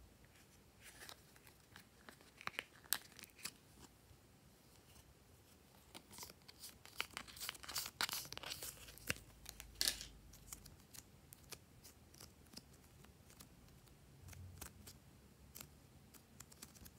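Soft modelling clay being peeled out of the heart-shaped compartments of a plastic palette, with crackling, crinkling and clicking of the plastic case in the hands. The noises come scattered and quiet, busiest in the middle stretch, with the sharpest clicks about three seconds and ten seconds in.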